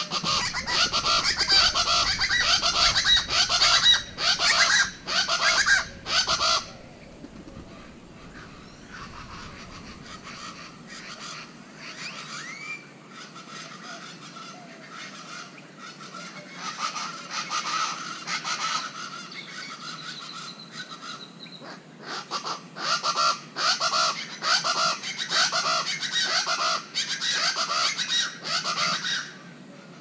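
Plain chachalacas calling: loud, rapid, repeated calls in three bursts, a long one at the start, a shorter one around the middle and another long one near the end.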